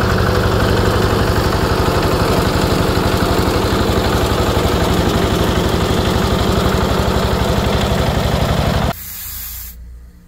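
Small compact tractor's engine running steadily with an even pulse as the tractor drives. It cuts off suddenly about nine seconds in, and a brief hiss of compressed air at a tyre follows.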